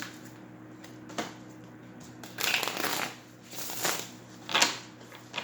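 A deck of cards being shuffled by hand, in several short bursts with the longest near the middle.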